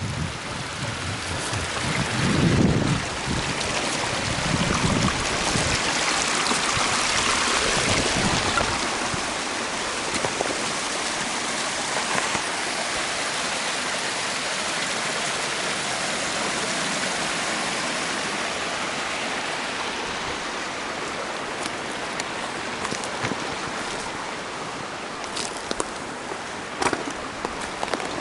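Steady rushing of a mountain stream, with a few low thumps in the first seconds and scattered sharp clicks near the end.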